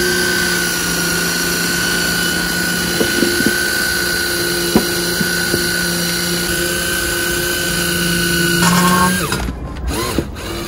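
Cordless drill running steadily with a constant whine, spinning a drill-driven pump that is pumping thick gear oil into a car's gearbox. Near the end the whine briefly changes and the drill stops, with the oil can nearly empty.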